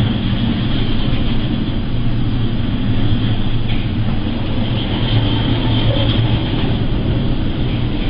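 A ship's engine drones steadily under a continuous rush of wind and sea noise as the vessel rides through heavy waves.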